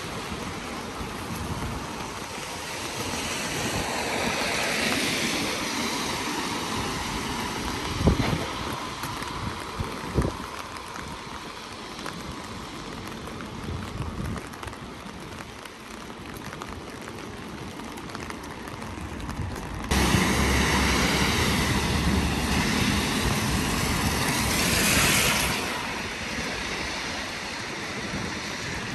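Rain falling on a street, with the tyres of passing cars on the wet road rising and fading twice. Two sharp knocks come about eight and ten seconds in, and the noise steps up suddenly about twenty seconds in.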